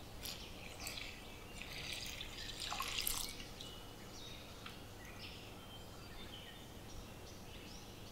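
Water poured from a plastic measuring jug into flour in a stainless steel bowl: a splashing pour that starts about two seconds in, swells, and stops after about three seconds. Faint high chirps follow, like birds in the background.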